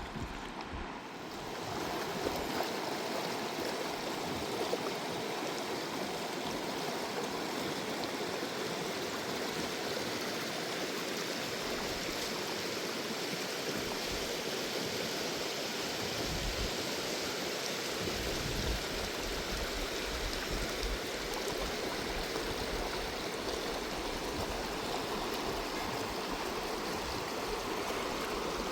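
Steady rush of flowing river water that sets in about two seconds in and holds at an even level.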